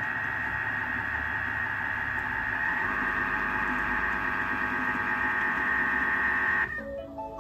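Thermomix TM6 motor spinning its mixing blades, a steady whir with a high whine that gets a little louder about three seconds in as the speed is raised toward 3. It cuts off abruptly near the end as the timer runs out.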